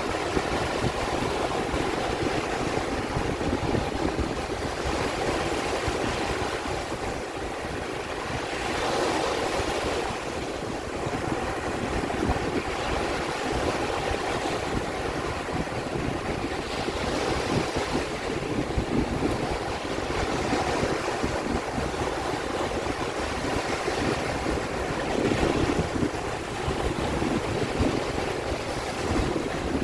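Sea waves washing continuously, swelling and easing every several seconds, with wind gusting over the microphone.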